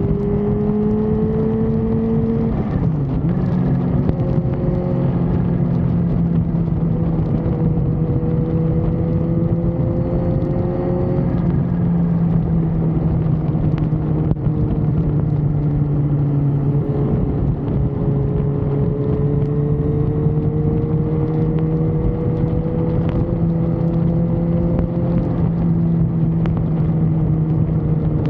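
A motor vehicle's engine running steadily on the move, its pitch slowly climbing and then dropping back about three times, over a constant hum and road noise.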